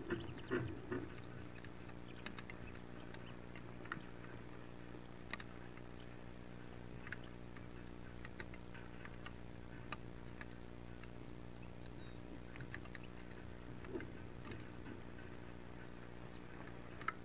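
Wood duck ducklings stirring in their nest box: scattered faint scratches and clicks, busier at the very start and with a louder click near the end, over a steady low hum.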